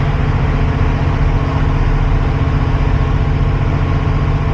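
Cat 349 excavator's diesel engine running steadily at a constant speed.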